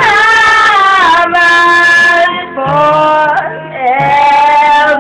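A young girl singing loudly in a high voice, holding long notes that slide from one pitch to the next, with two brief breaths between phrases.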